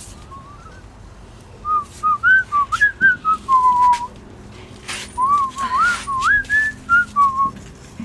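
A person whistling a tune in two short phrases, the notes sliding up and down. A few light metallic clicks and clatters fall among the notes.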